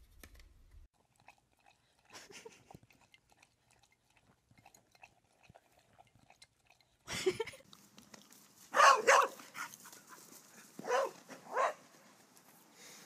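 A corgi: faint clicks and chewing noises in the first half, then several loud barks in the second half.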